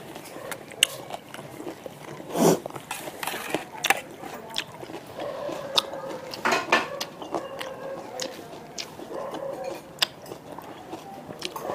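Close-miked chewing and mouth sounds of a person eating spicy noodles with cauliflower, with many sharp short clicks scattered throughout and a louder burst about two and a half seconds in.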